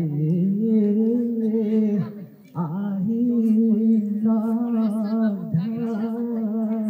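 A man singing a slow song unaccompanied into a microphone, amplified through a portable loudspeaker: long held notes with a wavering vibrato, in phrases with short breaks for breath.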